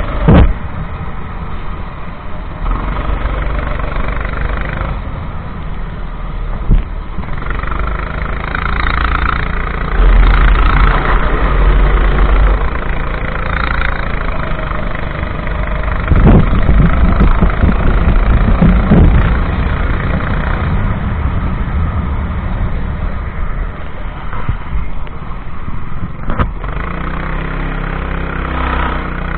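Go-kart engine running, its note rising and falling with the throttle. Heavy low rumbling surges come about ten and again about sixteen seconds in.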